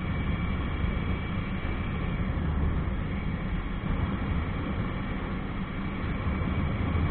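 Motorcycle on the move: steady engine and wind rumble, heavy in the low end, as picked up by a bike-mounted or helmet action camera.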